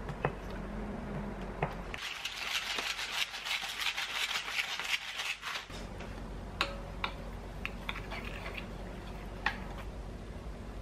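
A pepper mill grinding black pepper, a dense rattle of rapid fine clicks lasting about four seconds, starting about two seconds in. Then a spoon stirs a thick sesame and soy sauce paste in a bowl, with a few light taps.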